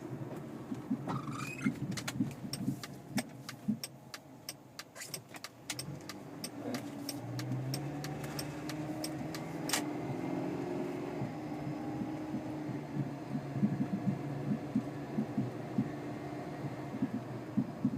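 2001 Oldsmobile Alero's front suspension clunking and thudding over and over while driving, a series of irregular dull low knocks over the engine and road noise, with a run of sharp clicks in the first half. The front-end clunk began after new tyres and struts were fitted and has not been cured by new hub bearings, stabilizer bar links or a tightened strut mount nut.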